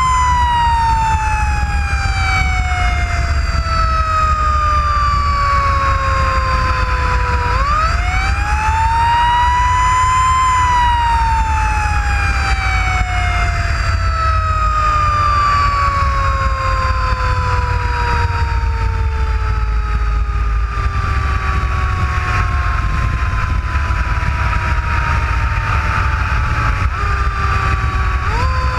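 Fire engine's siren wailing while under way: a long tone that falls slowly in pitch, winds back up about eight seconds in, then falls slowly again, with a second falling tone alongside and a brief rise near the end. Under it runs the steady low rumble of the engine and road.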